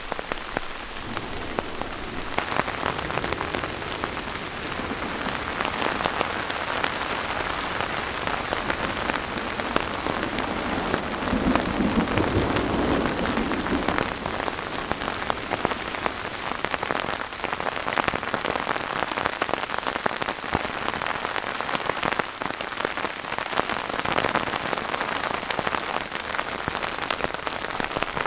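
Heavy thunderstorm rain: a dense, steady patter of close drop impacts. A low rumble of thunder swells about eleven seconds in and fades a few seconds later.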